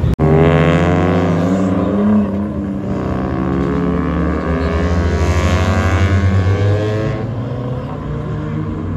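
Car engines revving hard as cars accelerate away down the street, the exhaust note rising in pitch in a long pull near the start and again in the middle before easing off.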